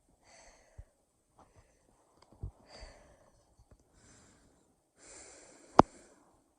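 A person breathing heavily right into the microphone in four or so short, noisy breaths, with small mouth clicks between them. A single sharp, loud pop comes near the end.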